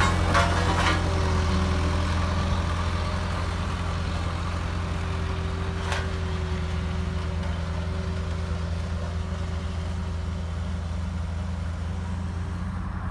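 HAMM HD 110 tandem asphalt roller's diesel engine running steadily, growing slowly quieter as the roller moves away. A sharp click about six seconds in.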